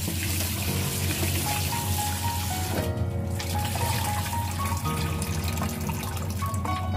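Kitchen tap water running into a stainless steel bowl of small fish and splashing as the fish are rinsed of their salt-and-cornstarch scrub, the cloudy water spilling out into a bowl in the sink. The splashing thins briefly about three seconds in.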